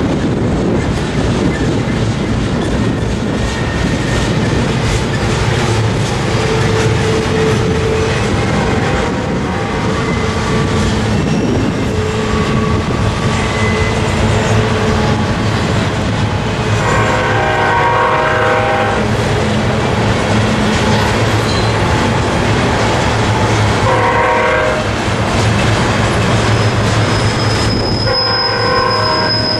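Double-stack container well cars of a long freight train rolling past with steady rumbling and clickety-clack of wheels. A few short pitched squeals come partway through, and a high steady wheel squeal sets in near the end as the wheels grind through the curve.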